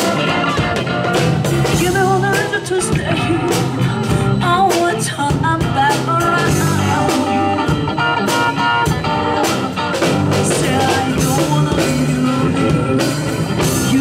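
Live band playing an improvised rock-blues jam: electric bass guitar grooving with a drum kit, with guitar or voice carrying a wavering melody above.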